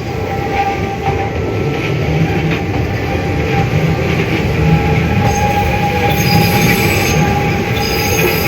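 Keihan 800 series train running past, its wheels squealing on the rails over a steady low rumble. Higher, shriller squeal tones join about five seconds in as the sound grows louder.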